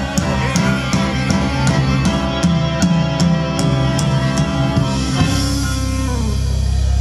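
Symphony orchestra with a drum kit playing a rock piece live. Cymbal hits keep a steady beat at about two and a half a second, then the piece ends on a long held low chord from about five seconds in.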